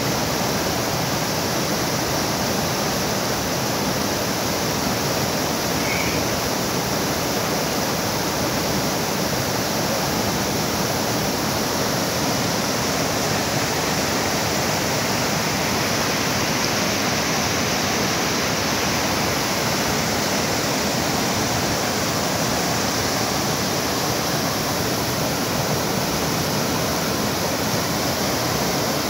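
Waterfall crashing steadily: a constant, even rush of falling water with no change in level.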